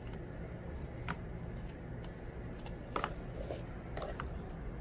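A few light clicks and taps of a steel spoon and plastic tubs and lids as jelly is scooped into a plastic cup, over a steady low background hum.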